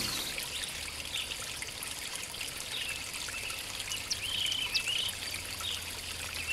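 Steady trickling water with scattered short bird chirps, which come more often from about four seconds in.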